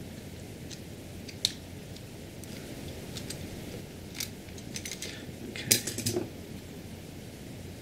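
Light, sharp clicks and scrapes of a small metal tool working on the DJI Air Unit's casing as it is pried apart. The clicks are scattered, with the loudest cluster about six seconds in.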